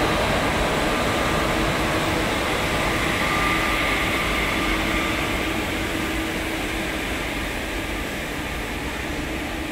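Indian Railways WAG-5HA electric locomotive hauling new LHB coaches past: a steady rumble and hiss of the train rolling on the rails, with a faint hum, easing off slightly toward the end as the locomotive moves away.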